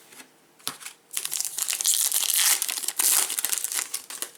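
Plastic wrapper of a trading card pack crinkling as it is handled and torn open, with a few light clicks in the first second, then dense crackling from about a second in until near the end.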